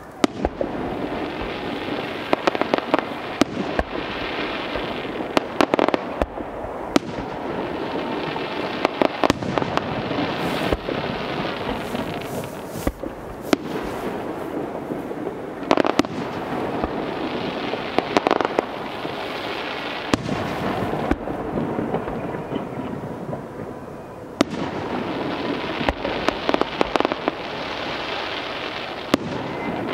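Aerial fireworks display: shells bursting in quick succession, many sharp bangs over a dense, continuous rattle of smaller pops, rising and falling in waves with a brief lull about three-quarters of the way through.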